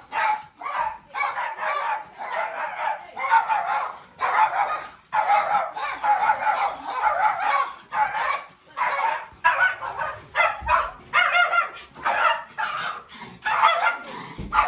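Small dogs barking over and over in rapid, high-pitched runs with brief pauses: fear-reactive barking at a stranger.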